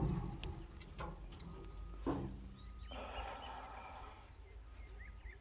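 Quiet outdoor ambience with small birds chirping faintly now and then. It opens with a short metal knock from the lid of the oil-drum barrel smoker as it swings open, and there is a second, softer knock about two seconds in.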